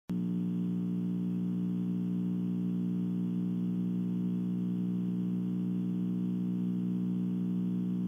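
Steady electrical hum on the nest camera's audio line: a constant buzz of low tones that switches on abruptly at the start and holds unchanged.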